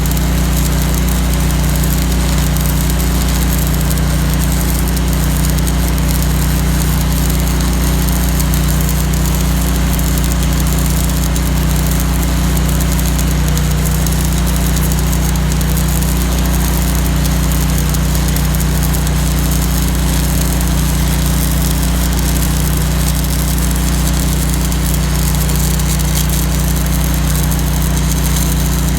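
Lincoln Ranger 250 engine-drive welder running under welding load while a 3/16" Lincoln 5P+ (E6010) stick electrode burns at 180 amps: steady engine hum with the arc's continuous crackle and hiss.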